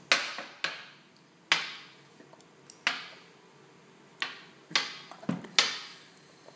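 A child's spoon being banged against a hard surface: about eight sharp, irregular knocks, each with a short ringing tail.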